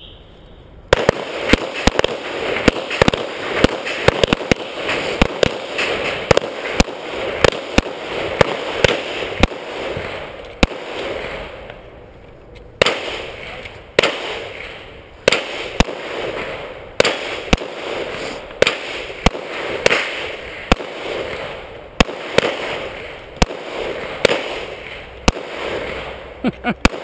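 Rapid handgun fire from two shooters shooting at bowling pins: dozens of sharp shots starting about a second in, coming fast at first, with a brief lull about twelve seconds in, then continuing in quick strings.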